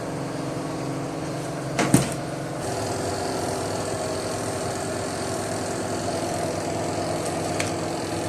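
Ramtons twin-tub washing machine running: a steady electric motor hum from the spinning tub while the wash tub is drained. There is a single knock about two seconds in, and the hum changes tone shortly after.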